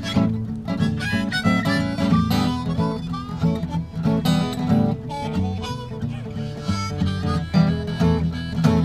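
Blues played live on an acoustic guitar and a harmonica: the guitar is strummed under the harmonica's held melody notes.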